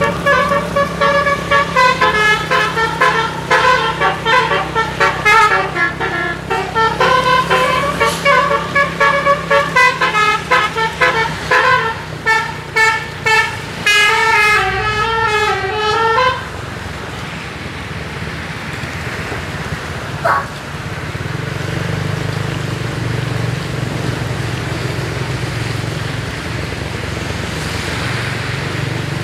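Full telolet multi-tone bus horn with roof-mounted trumpets playing a fast melodic run of many quick notes, some of them warbling, for about sixteen seconds before it stops. Engine noise follows, rising in level, with one short rising horn note around twenty seconds in.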